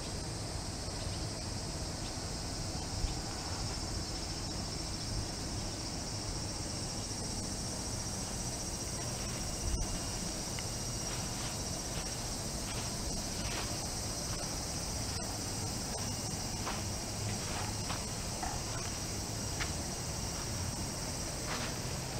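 A steady, high-pitched chorus of insects, with faint footsteps crunching on sandy, silt-covered ground from about halfway in.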